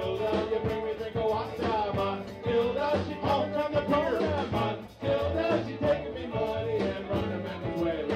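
Live band playing an upbeat calypso-style song on electric guitar and drum kit.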